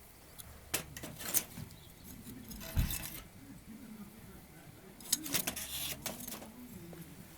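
Brief rustling crackles and snaps of twigs and kindling being handled while a campfire is started: several short bursts, the longest about a second and a half in and again about five seconds in. Faint low voices or cooing in the background.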